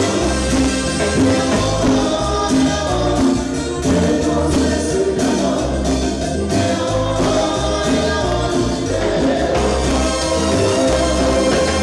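Cumbia band playing live, with a steady bass and percussion beat under the melody and singing voices.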